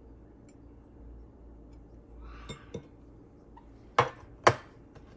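Table knife and ceramic plate clinking as they are set down: a couple of light taps, then two sharp clinks about half a second apart near the end.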